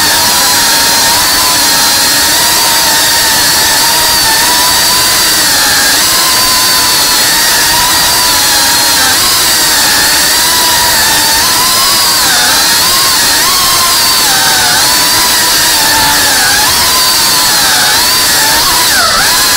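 FPV quadcopter's brushless motors and propellers whining at high speed, heard from the drone itself. The pitch keeps rising and falling as the throttle changes, with a sharp dip near the end.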